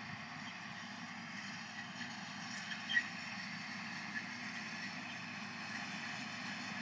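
John Deere 6920 tractor's diesel engine running steadily while mowing hay, with a brief click about three seconds in.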